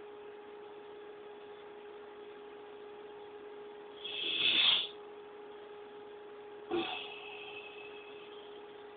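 Steady electrical hum, broken by two short breathy sounds: a loud one about four seconds in and a shorter, sharper one near seven seconds.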